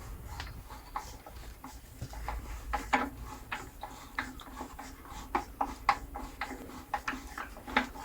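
Light, irregular clicks and ticks, several a second, as the blade tension on an Axminster Craft AC1950B bandsaw is wound off by hand.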